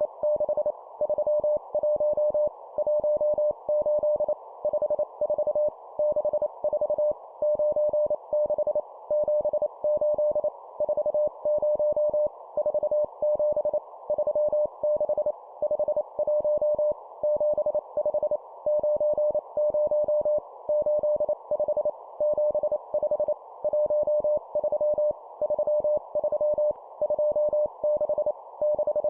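Morse code (CW) practice tone sent at 25 words per minute: a single steady beep keyed on and off in quick dots and dashes with short gaps between characters, over a faint band of hiss.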